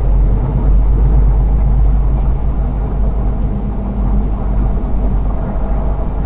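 Semi-truck's diesel engine running with a steady low rumble.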